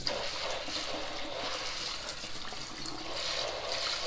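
Tap water spraying steadily onto yellow crookneck squash in a plastic colander in a sink, rinsing them.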